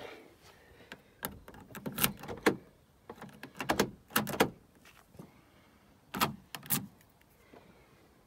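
Short knocks and clicks on a Vauxhall Corsa's door and window glass, in uneven clusters. The loudest come about two and about four seconds in, with two more a little after six seconds.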